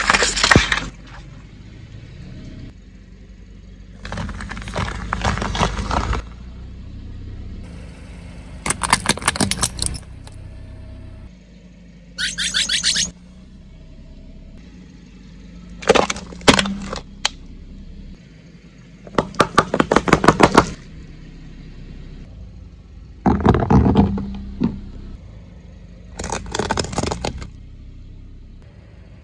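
A car tyre rolling over and crushing plastic objects one after another: about eight separate bursts of rapid cracks and snaps, each a second or two long and three to four seconds apart. A low car rumble runs between them.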